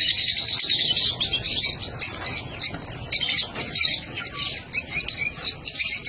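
A flock of small parrots in a colony aviary chirping and chattering continuously, with many high-pitched calls overlapping.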